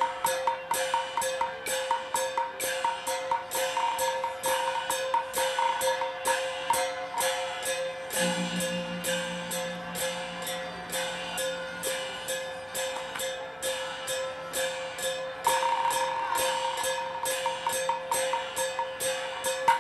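Teochew opera instrumental music: a wooden percussion instrument knocks a steady beat, about two to three strokes a second, under a held note and repeated melody notes. A lower note joins for a few seconds midway.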